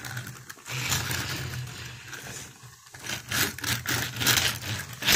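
A toy train engine pushed by hand along plastic toy track: its wheels roll and scrape with a low rumble, then a run of clicks and rattles in the second half.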